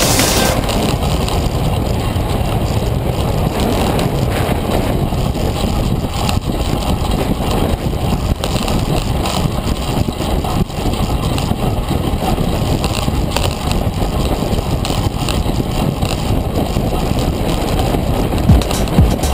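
Steady rush of wind on the microphone and tyre roar from a track bike riding at speed on wooden velodrome boards. A few sharp knocks come near the end.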